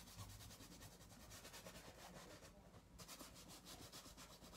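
Near silence, with faint rubbing of fingers spreading acrylic paint over canvas.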